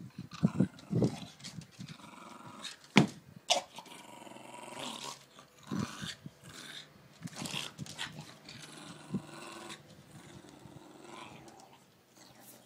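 A Staffordshire bull terrier growling in long rumbles, broken by a few short sharp sounds, the loudest about three seconds in.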